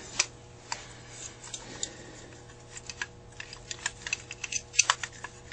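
Irregular light metallic clicks and taps from a Carter AFB four-barrel carburetor being turned over and handled, its metal parts and linkage knocking, a little busier near the end.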